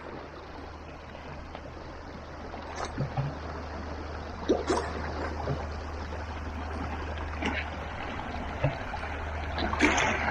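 Small waves lapping and splashing among shoreline rocks: a steady wash with irregular splashes that grow louder and more frequent near the end.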